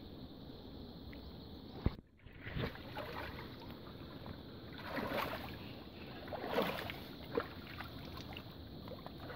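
River water splashing and sloshing around a man's legs as he wades through knee-deep water, rising in several surges as he steps. A sharp click and a brief dropout about two seconds in mark a break in the recording.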